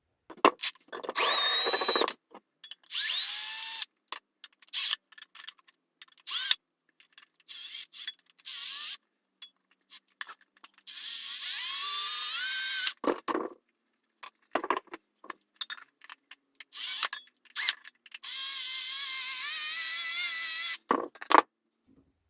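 Power drill running in several short bursts, its pitch rising as each burst starts and then holding steady, with knocks and clicks of work on the wood between the bursts.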